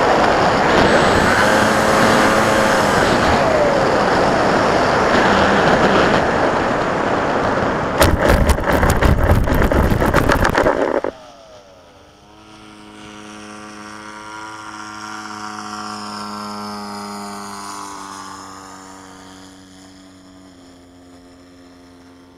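Radio-controlled FPV model plane landing on grass, heard from its onboard camera. A loud rush of air during the low approach gives way about eight seconds in to a rapid run of bumps and scrapes as it touches down and skids across the turf. It stops abruptly near eleven seconds, leaving a faint steady droning hum that swells and fades.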